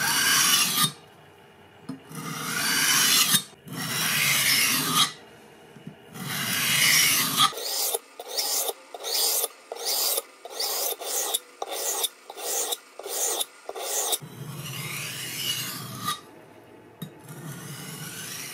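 Nakiri knife blade being honed by hand on a Sharpal diamond whetstone: repeated gritty scraping strokes of steel on the diamond plate, grinding the severely damaged edge. Long strokes at first, then about halfway through a run of quicker, shorter strokes about two a second, then longer strokes again.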